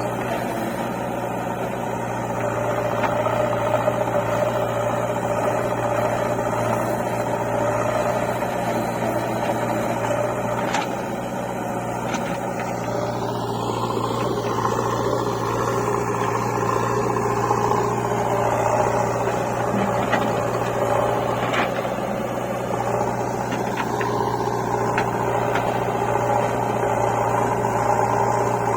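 An engine running steadily at constant speed, with a few faint clicks or knocks scattered through.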